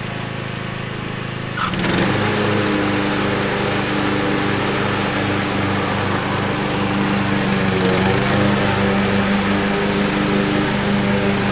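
Troy-Bilt riding lawn mower's engine running as the mower drives over grass, stepping up in loudness about two seconds in and then running steadily.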